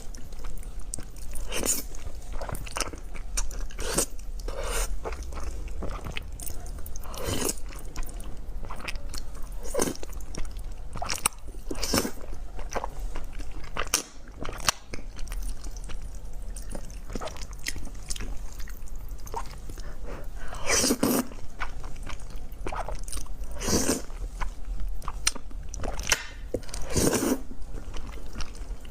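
Close-miked mouth sounds of a person eating noodles and eggs: wet chewing and biting with irregular sharp clicks and smacks, a few louder ones in the last third.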